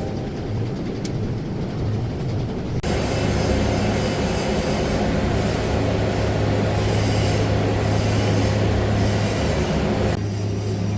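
TIG welding arc on a 3 mm stainless steel plate: a steady hiss over a low hum. It grows louder about three seconds in and eases back near the end.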